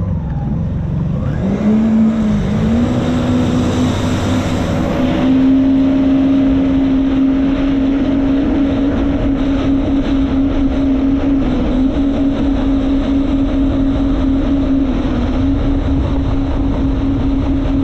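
Jet ski engine speeding up over the first few seconds, its pitch climbing, then holding a steady cruising note under a rush of wind and water noise.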